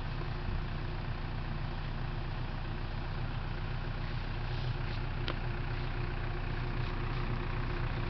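Tractor engine idling steadily with a low hum. A single sharp click about five seconds in.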